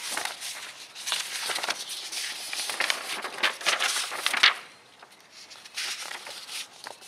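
Paper pages of a printed instruction booklet rustling and flapping as they are turned and handled by hand, with a brief pause about two-thirds of the way through and a shorter rustle after it.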